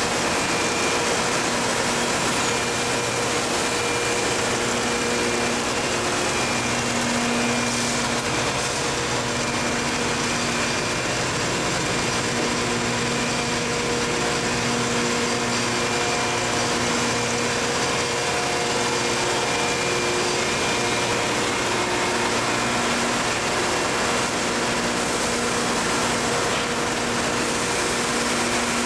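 Dry ice pelletizer running steadily while producing pellets: a continuous machine hum with a few held tones over a broad hiss.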